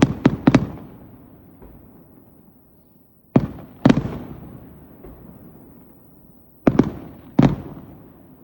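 Aerial fireworks shells going off: three clusters of sharp bangs, about four at once right at the start, two a few seconds later and three near the end, each cluster trailing off in an echoing rumble.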